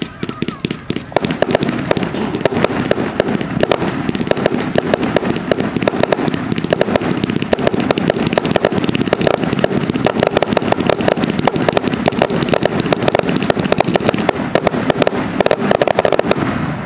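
Fireworks going off in a dense barrage: many rapid, overlapping bangs and crackling, stopping abruptly near the end.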